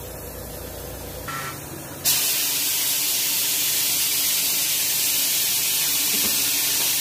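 Compressed air hissing steadily as a truck's air suspension bags are inflated and the suspension rises. The hiss starts suddenly about two seconds in, after a fainter low hum.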